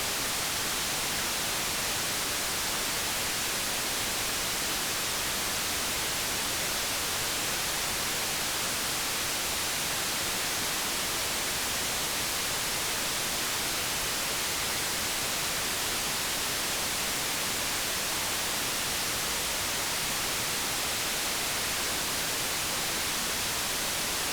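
Steady, unchanging white-noise hiss, strongest in the high frequencies.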